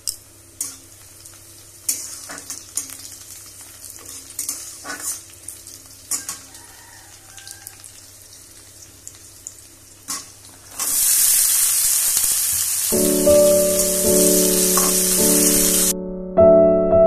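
Steel spatula scraping and tapping in a steel kadai as dried red chillies fry in oil with a light sizzle. About eleven seconds in, a loud steady sizzle starts and cuts off abruptly near the end, while piano music comes in partway through.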